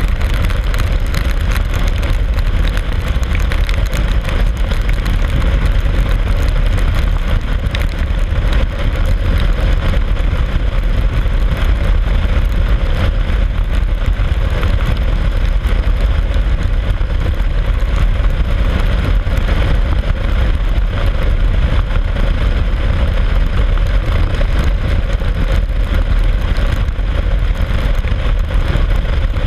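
Motorcycle cruising on a wet highway in the rain: a steady heavy rumble of wind on the microphone over engine and tyre noise, with a constant hiss of wet road and spray.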